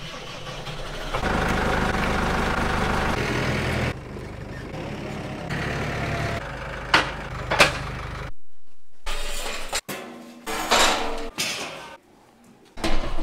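A vehicle engine running steadily for about eight seconds, louder for a few seconds near the start, then cutting off suddenly. After a short silence come a series of sharp knocks and rattles.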